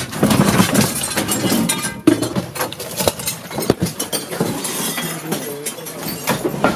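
Clatter of a barricade being pulled apart: furniture panels knocking and banging together, with broken glass clinking. One sharp, loud bang comes about two seconds in.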